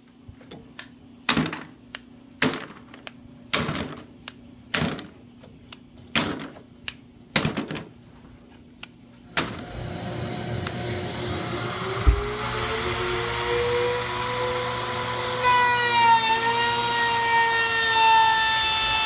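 A series of sharp wooden knocks, about one every second or so, then an electric power tool motor starts up and runs steadily, its pitch climbing slowly and then dipping for a moment as it is loaded.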